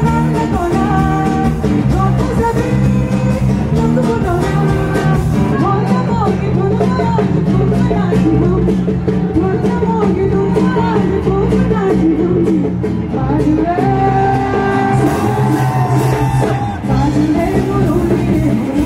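A woman singing into a microphone with a live band: acoustic and electric guitars, bass guitar and drums, amplified through the stage PA.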